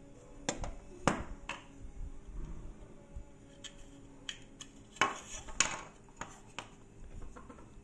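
Hard plastic clicks and knocks as a wall-socket faceplate and a plastic surface-mount back box are handled and a cable is fed into the box. There are about eight separate clacks, the loudest about a second in and twice near five seconds in.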